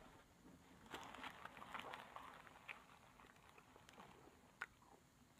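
Near silence, with a few faint soft clicks and rustles between about one and three seconds in and one more tick near the end: small handling sounds as a paper napkin is held up to the mouth.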